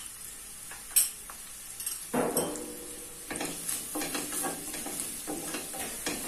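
A wooden spatula stirring and scraping sliced onions and green chillies frying in oil in a stainless steel frypan, with a steady sizzle; the stirring starts about two seconds in. One sharp knock about a second in.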